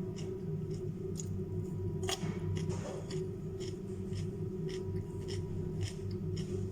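Close-up chewing of crunchy raw vegetables: a steady run of crisp crunches, about three a second, over a steady low hum.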